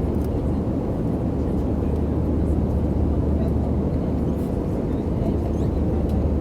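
Airplane cabin noise heard from inside the passenger cabin: a steady low drone with a deep hum underneath, unchanging in level.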